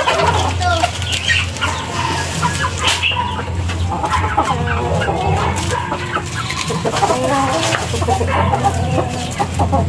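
Chickens clucking, many short calls overlapping one another, over a steady low hum.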